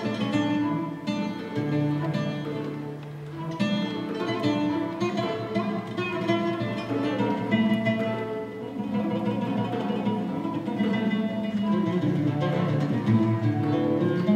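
Turkish classical music ensemble playing a song in the kürdilihicazkâr makam, led by plucked strings such as the ud, with bowed cello and ney.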